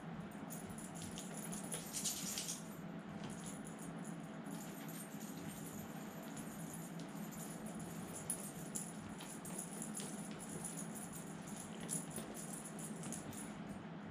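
A cat's paws and claws scrabbling and tapping on a ceramic tile floor as it dashes and pounces, in scattered small clicks with a louder scuffle about two seconds in. A steady low hum runs underneath.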